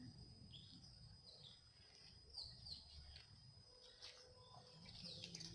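Faint bird chirps: several short calls scattered through an otherwise near-silent background, over a faint low rumble.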